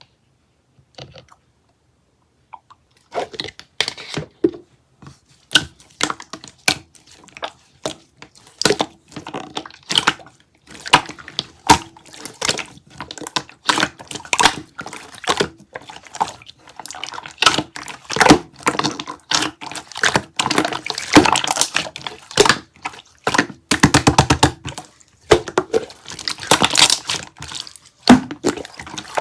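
Sprinkles being crunched and squished by hand: a dense, irregular run of sharp crackles, clicks and pops that starts about three seconds in and keeps on, with a few wetter squishes among them.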